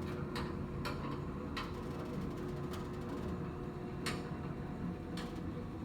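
About six light, irregularly spaced clicks over a steady low hum.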